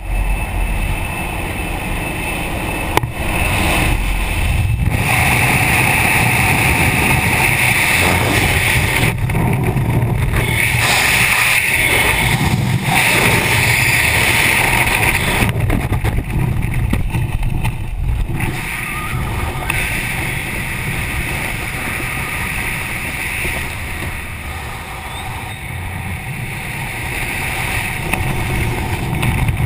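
Loud, steady wind rushing past a GoPro camera through a skydive: aircraft noise at the open door, then freefall wind after the exit within the first few seconds. The wind eases off gradually near the end, once the parachute is open.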